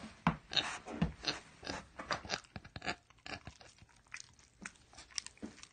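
A pig chewing close up: a quick, irregular run of crunches, several a second, fading somewhat toward the end.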